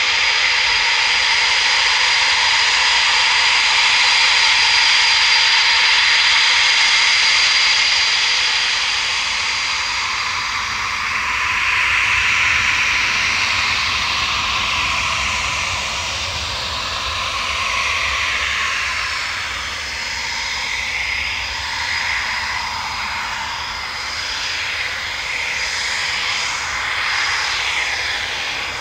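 Eurofighter Typhoon's twin Eurojet EJ200 turbofans at taxi power, a loud, steady high whine. From about halfway through, the tone wavers and sweeps as the jet turns and rolls past.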